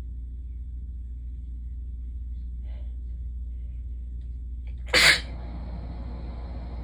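A single sharp human sneeze about five seconds in, one of a sneezing fit, over a steady low hum.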